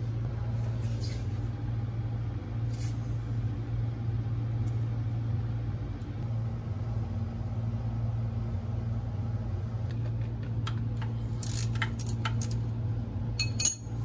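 Short hissing sprays from an aerosol can of penetrating oil soaking the oil pan bolts, a couple early and several near the end, over a steady low hum.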